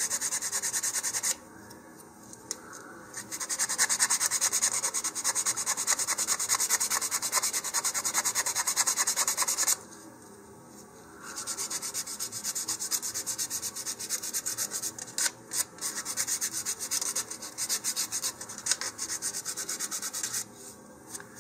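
150-grit sandpaper rubbed by hand along the leading edge of a paper-covered balsa fin, rounding it off. Quick, regular back-and-forth strokes, pausing briefly about a second in and again about ten seconds in, then sparser near the end.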